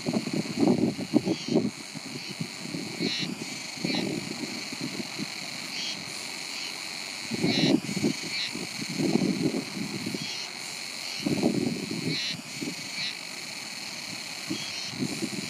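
Wind buffeting the microphone in irregular gusts, over insects chirping in short repeated calls above a steady high-pitched buzz.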